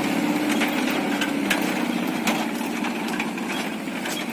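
An engine idling steadily, with a few light clicks and knocks over it.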